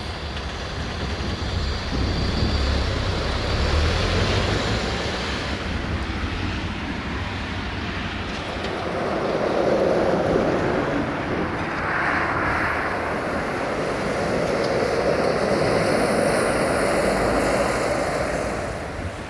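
Diesel multiple unit train running past on the track: a steady diesel engine drone with wheel and rail noise, swelling about ten seconds in and again later, then easing near the end.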